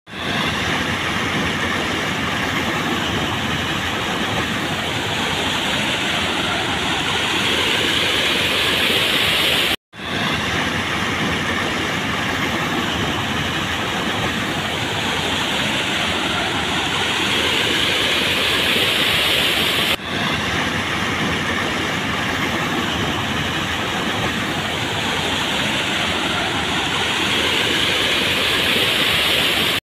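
A steady rushing noise, like running water, made of a 10-second stretch that repeats three times, each repeat starting abruptly after a split second of silence.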